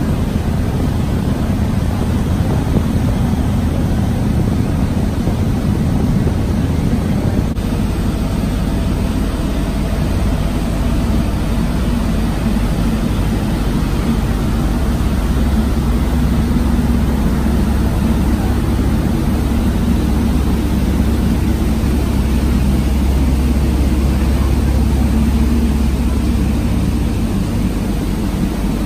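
Passenger ferry's engines running steadily under way, a deep even drone heard from the open stern deck, with a rushing haze of wake and wind over it.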